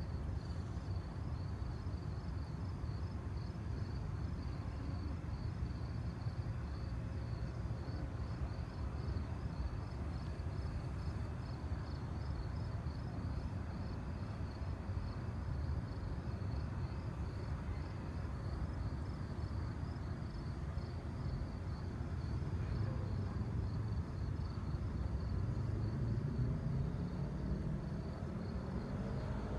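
Crickets chirping steadily in a high, even pulse, about four chirps a second, over a steady low rumble. Over the last several seconds a low hum rises in pitch and grows a little louder.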